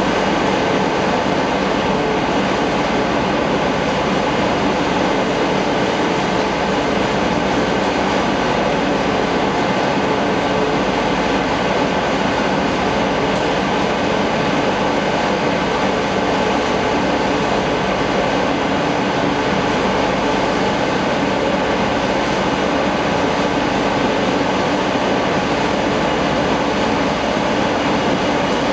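Olive mill machinery running: a loud, steady mechanical din with a few faint hum tones.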